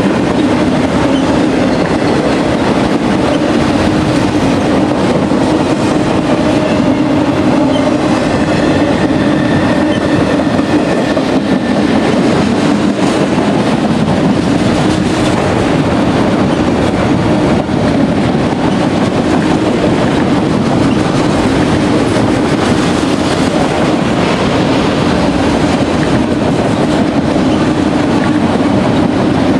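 A long freight train's cars rolling past, with a steady, loud rumble of steel wheels on the rails.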